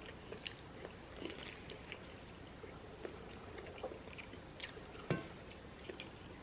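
Faint chewing, with scattered small clicks and mouth sounds of eating, and one sharper tap about five seconds in.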